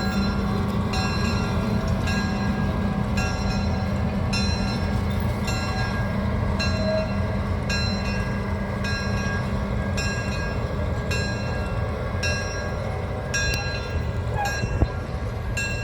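Train bell ringing steadily about once a second over the low, steady hum of the train's locomotive as the train pulls out.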